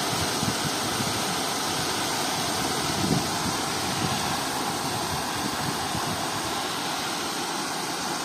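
Water rushing steadily over a low concrete weir and churning in the shallow stream below, with a brief louder thump about three seconds in.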